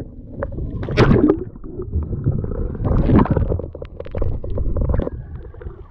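Muffled water sloshing and gurgling with scattered knocks, loudest about a second in and again around three seconds in.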